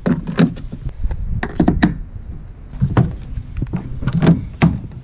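Plastic Ozark Trail rod holders knocking and clicking against their flush gunwale mounts as they are slid in and seated: a dozen or so short, irregular knocks.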